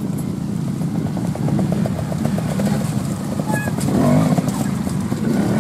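Trials motorcycle engine running at low revs with an even beat, then given a burst of throttle about four seconds in as the bike is ridden up a rocky section.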